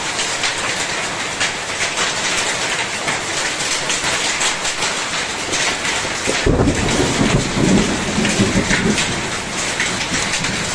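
Heavy rain mixed with hail pelting the ground, a dense steady hiss peppered with quick pattering hits. About six and a half seconds in, a low rumble rises under it for a couple of seconds.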